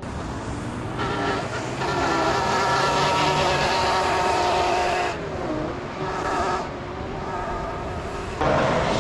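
Electric motors of an Ungoverned Vendetta tracked board whining as it is ridden over sand, a steady buzzing pitch with many overtones. It goes quieter around the middle and comes back louder near the end.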